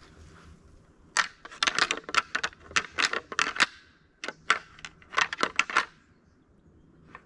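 Dry scrub, twigs and leaf litter crunching and crackling underfoot as someone pushes through bush, in a dense burst of about two and a half seconds, a short pause, then two shorter bursts and one last crackle near the end.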